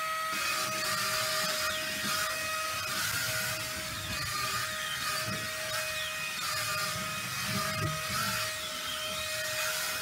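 Wall-climbing remote-control toy car's suction fan running with a steady high whine, holding the car to the wall as it drives.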